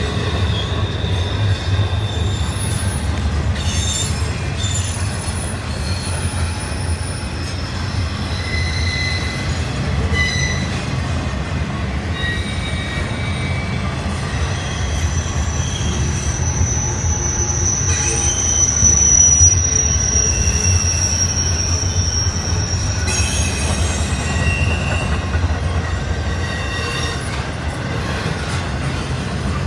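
Double-stack intermodal well cars of a freight train rolling past: a steady low rumble of steel wheels on the rails, with high wheel squeals coming and going. One long, slightly falling squeal is held for several seconds about halfway through.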